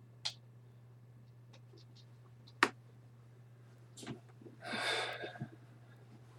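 Trading cards and their packaging being handled: a few sharp clicks, then a rustle lasting about a second, over a steady low electrical hum.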